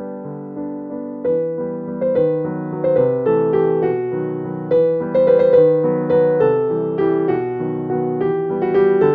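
Background piano music: a gentle run of struck notes that fade after each strike, busier from about a second in.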